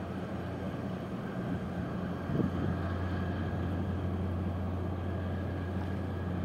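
Steady low drone of ship engines from a passing container ship and its harbour tug. A gust of wind thumps on the microphone a little over two seconds in.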